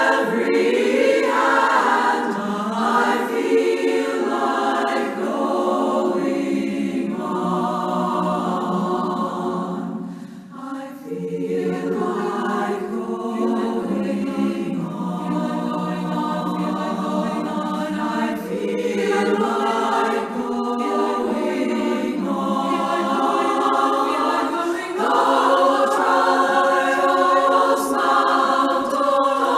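Women's choir singing a gospel song in harmony, long held chords, with a brief breath between phrases about ten seconds in.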